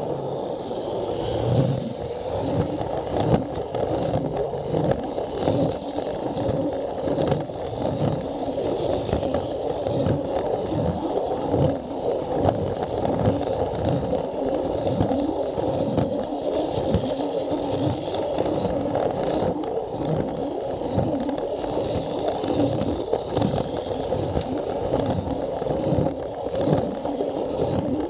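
Plarail battery-powered toy train running along plastic track, its small electric motor and gearbox whirring steadily, with a quick uneven clacking as the wheels pass over the track joints.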